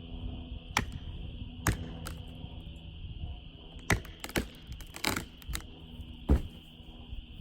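Sharp knocks and cracks from an ash tree being brought down with felling wedges. About eight separate strikes come at uneven spacing, the heaviest a deep thump about six seconds in.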